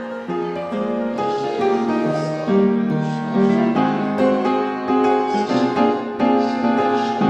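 Background piano music: a gentle melody of separate notes over chords.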